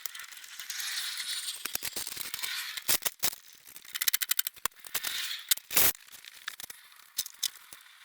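Hand tools working on a car's exhaust flange: scattered metallic clicks and clinks, a quick run of clicks about four seconds in, and a sharper knock near six seconds.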